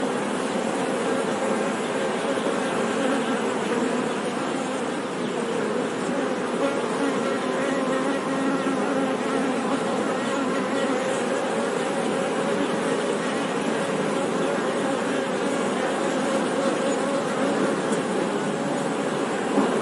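Honey bees buzzing in a dense, steady hum of many overlapping wavering tones, with a brief click near the end.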